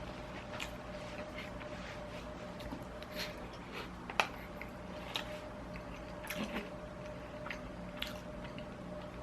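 Close-miked chewing and wet mouth sounds of a person eating, with scattered small clicks and one sharp click about four seconds in, over a faint steady hum.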